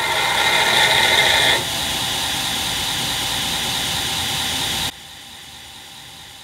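Belt grinder with a heavy ceramic Cubitron II belt grinding a stainless Damascus blade blank: a loud steady grinding hiss with a steady whine, easing slightly about a second and a half in, then dropping abruptly to a much quieter steady run near five seconds.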